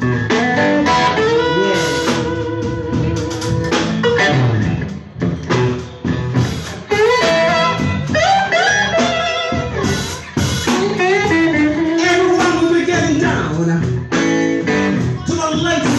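Live band playing blues: electric guitar over a drum kit, with held and sliding notes.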